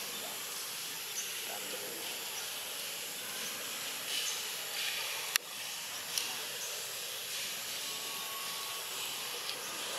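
Steady, high outdoor hiss with a few faint, short high chirps and one sharp click about five seconds in.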